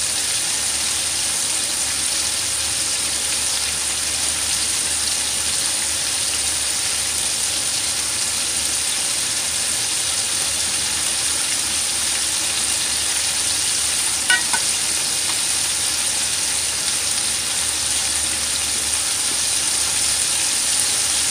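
Coated chicken thigh pieces (karaage) deep-frying in hot oil in a frying pan over fairly high heat: a steady, even sizzle. A brief clink about two-thirds of the way through.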